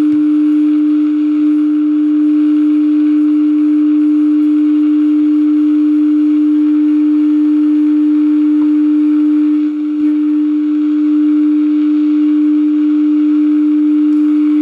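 Steady low test tone from a 1948 General Electric tube radio's speaker: the signal generator's modulated 455 kHz intermediate-frequency signal passing through the set during IF alignment. The tone dips briefly about ten seconds in.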